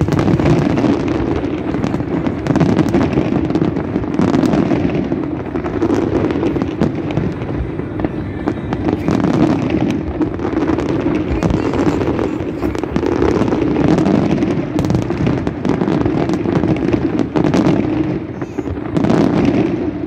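Large aerial fireworks display going off in a dense, unbroken barrage of overlapping bangs and crackles.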